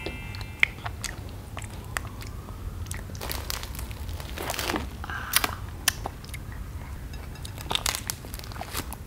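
Crusty Vietnamese baguette (bánh mì) being torn apart by hand and bitten into: the crisp crust crackles and crunches in many small sharp snaps, with chewing.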